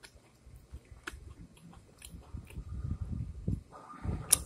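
A person chewing a chocolate chip cookie close to the microphone, in a run of repeated chews through the middle. A single sharp click near the end.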